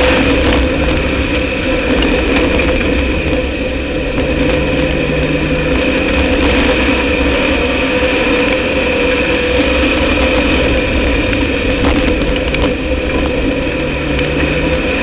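Dirt-track race car's engine running loud and steady at a nearly constant pitch, heard from inside the car's cockpit.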